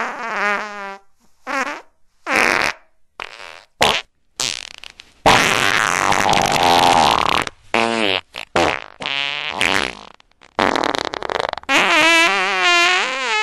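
A rapid string of farts, about a dozen of them, mixing short pops with longer ones. An airy, hissing one runs for about two seconds in the middle, and near the end a long, buzzing fart wavers in pitch.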